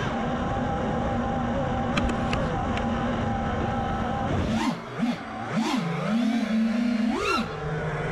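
Brushless motors of an FPV freestyle quadcopter spinning at idle with a steady whine, then rising and falling in pitch in quick throttle punches as the drone lifts off and flies, about five swoops in the last three seconds.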